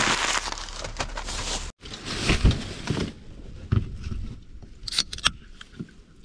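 Handling noise: rustling, then a few separate knocks and clicks as a soda can and a plastic bag of lures are moved about on a cooler.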